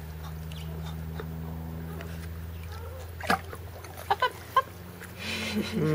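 A Weimaraner puppy paddling in shallow pool water, with a few short splashes in the second half, over a steady low hum. Near the end a loud drawn-out vocal sound bends up and down in pitch.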